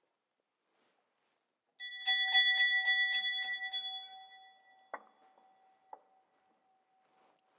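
A set of small altar hand bells shaken about eight times, four strikes a second, then left to ring out. This signals the start of Mass as the priest enters. Two soft knocks follow about a second apart.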